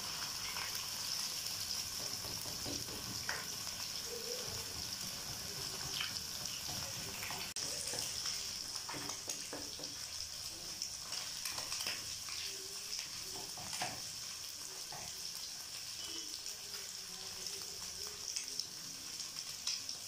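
Eggs sizzling in hot oil in a non-stick wok as a slotted spatula stirs and breaks them up. The sizzle is a steady high hiss, with light scrapes and taps of the spatula against the pan scattered through it.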